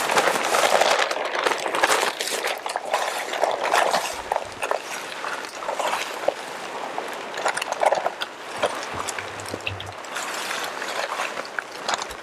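Dry Quikrete concrete mix pouring from a bag into a post hole around a steel post: a continuous gritty hiss with many small clicks of grit and gravel.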